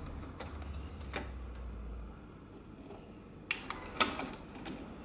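A cassette being loaded into a Sony TC-K611S cassette deck: a few light plastic clicks as the tape goes into the door, then a cluster of sharper clicks as the cassette door is pushed shut, the loudest about four seconds in.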